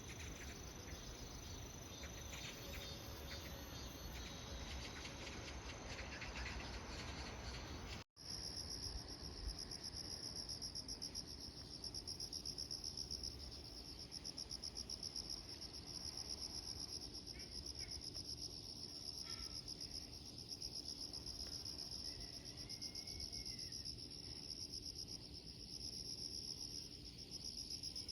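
Insects chirring in a steady, rapidly pulsing high trill. The sound drops out for an instant about eight seconds in, then carries on.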